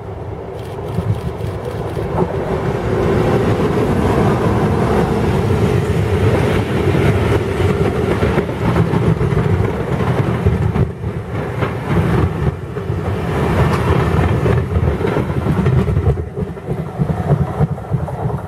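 Diesel-hauled passenger train passing at close range: it builds up over the first few seconds, then the locomotive's engine and the rake of coaches go by with wheels clattering over the rail joints, and it begins to die away near the end.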